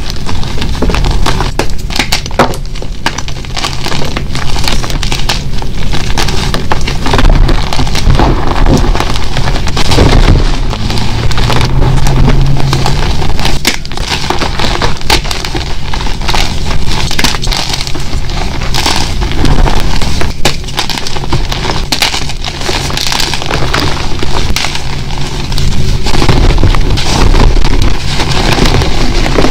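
Blocks of dyed and plain gym chalk being crushed and crumbled between the hands: a close, continuous crunching and crackling as pieces break apart and grind into powder.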